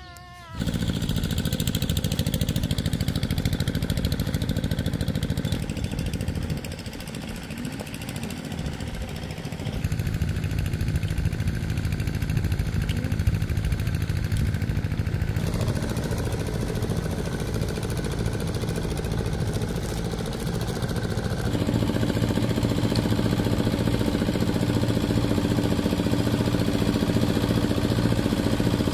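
An engine running steadily. Its sound drops back for a few seconds early on, picks up again, and its pitch shifts a couple of times later.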